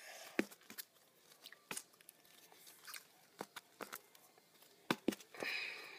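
Faint handling of cut strips of wallet material: scattered light crinkles and clicks, with a longer rustle about five and a half seconds in.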